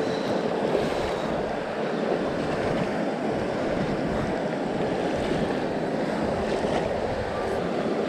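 River water rushing and rippling over shallow stones close to the microphone, a steady noise.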